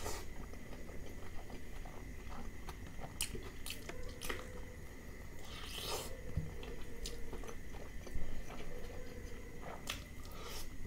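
Close-miked eating sounds: chewing, with the wet squish of fingers mixing rice into curry on a plate and scattered small clicks.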